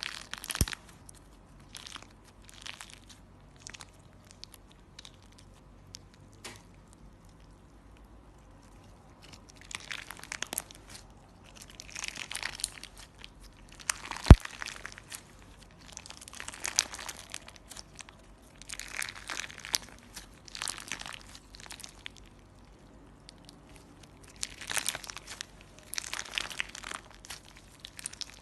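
Clear slime mixed with glitter and small balls being squeezed and worked by hand, crackling and popping in repeated bursts with short pauses between. About fourteen seconds in there is a single sharp snap, the loudest sound.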